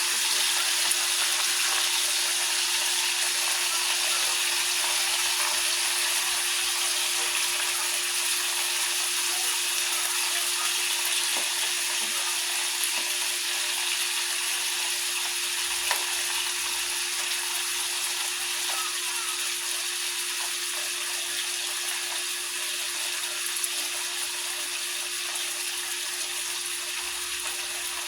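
Ribeye steak sizzling in a hot pan with butter added, a steady hiss that slowly dies down, with a steady hum underneath.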